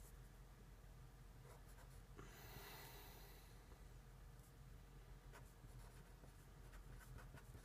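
Faint scratching of a marker pen writing on paper: a few short strokes, with a longer stroke about two and a half seconds in.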